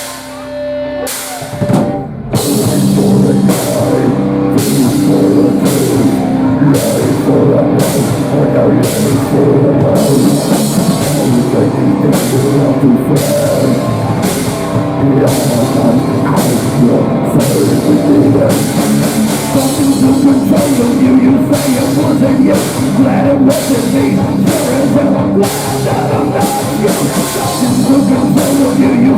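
Rock band playing heavy rock with a drum kit and cymbals. A held note sounds alone at first, and the full band with drums comes in about two seconds in.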